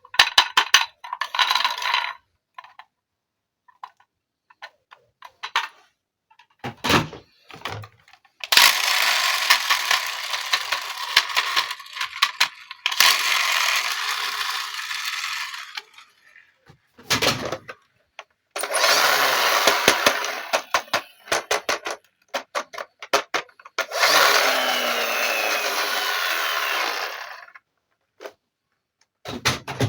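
Small electric motor of a battery-powered toy running in four bursts of about three seconds each, between clicks and clatters of hard plastic being handled.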